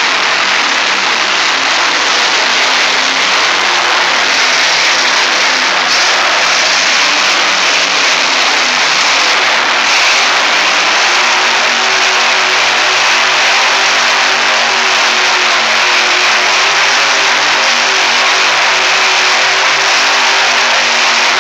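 Monster truck's supercharged V8 held at high revs while the truck spins donuts, loud and continuous, its engine note growing clearer and steadier about halfway through.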